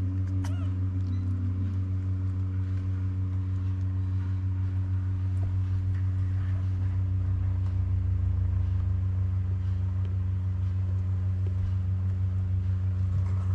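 A steady low-pitched hum with a slight regular pulsing, unchanging throughout, with a brief faint squeak about half a second in.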